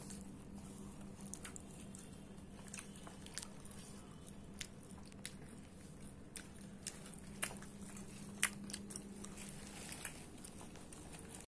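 Quiet chewing and eating by hand from a steel plate, with scattered small clicks and ticks and a couple of sharper clicks in the second half, over a steady low hum.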